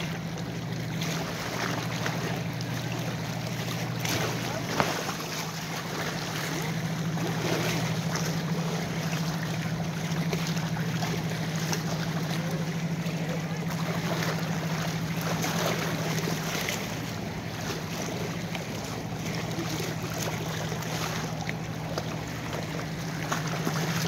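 Small bay waves lapping and splashing against shoreline rocks, over a steady low hum, with one short sharper sound about five seconds in.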